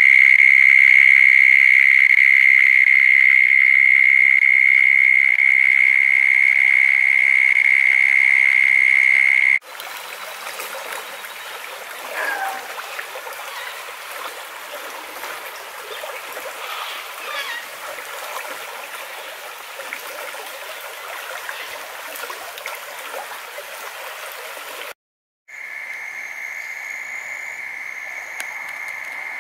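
A loud, steady, high-pitched trilling chorus of calling animals. After a cut, a rain-swollen creek rushes and splashes through a grassy channel, with a few faint chirps. After a brief dropout the steady trilling returns, quieter, with a soft pulsing higher call over it.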